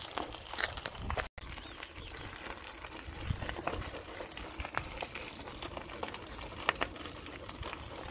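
Footsteps of a person and a dog crunching on gravel while walking at heel, an irregular run of small crunches and ticks.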